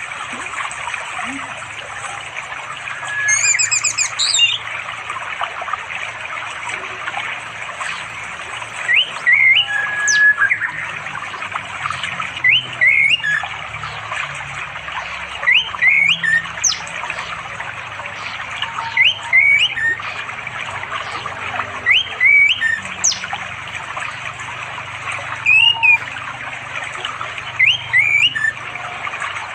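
Orange-headed thrush calling: short rising phrases repeated every few seconds, after one louder, harsher call about three seconds in. A steady hiss of flowing stream water runs beneath.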